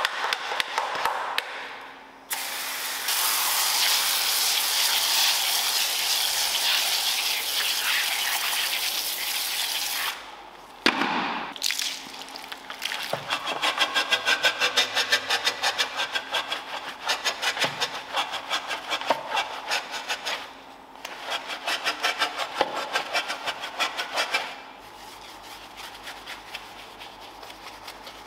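Car-interior detailing work: scrubbing strokes of a detailing brush, broken by a steady hiss lasting about seven seconds from about three seconds in. Fast, rhythmic back-and-forth scrubbing follows and turns quieter near the end.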